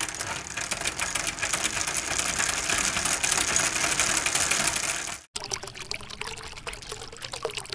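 Water splashing and trickling steadily in a fish tank, cutting off abruptly about five seconds in; a fainter water sound follows.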